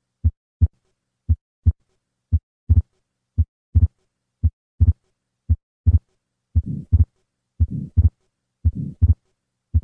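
Heart sounds of an atrial septal defect at about one beat a second: plain lub-dub beats at first, then from about three seconds in the second heart sound splits into two close beats, and from about six and a half seconds a soft systolic flow murmur fills the gap after the first sound. The fixed split second sound with a systolic flow murmur across the pulmonic valve is the sign of the defect.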